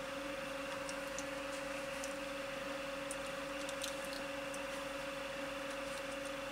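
Steady low electrical hum with hiss, and a few faint light ticks of small parts being handled by hand.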